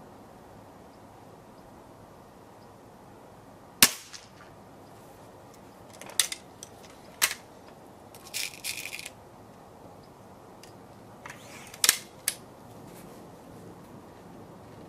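HW97 underlever spring air rifle being cocked and loaded: a sharp, loud metallic clack about four seconds in, then single clicks, a short ratcheting rattle from the cocking lever's anti-beartrap, and two more clicks near the end.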